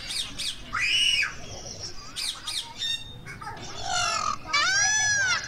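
Parakeets squawking: a run of harsh, quick screeches with a longer arched squawk near the end.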